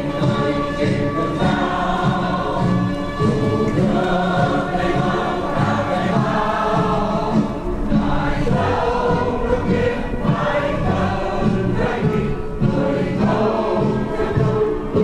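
A choir singing.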